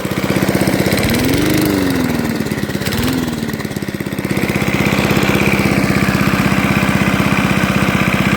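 Restored push mower's small engine running. It revs up and back down about a second in, blips once more near three seconds, then settles into a steady, slightly louder run.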